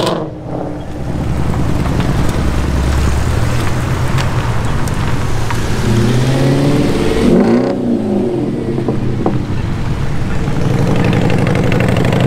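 Car engines and exhausts running as cars pull away, with a rev that rises and falls between about six and eight seconds in.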